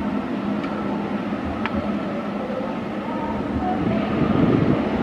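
Jet airliner engines running, a steady engine noise with a thin high whine, growing a little louder near the end as an airliner touches down.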